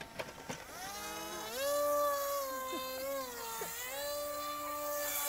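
Small electric motor of a homemade radio-controlled boat whining as it drives the boat across the water. The pitch rises about a second and a half in, dips briefly a little past the middle, then climbs back as the throttle changes.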